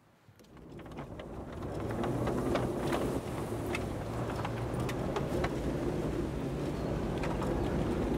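A box van's engine running as it drives across a gravel lot, building up over the first two seconds and then steady, with scattered small clicks.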